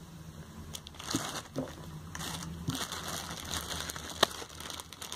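Clear plastic bag crinkling as it is handled, with a few short sharp clicks.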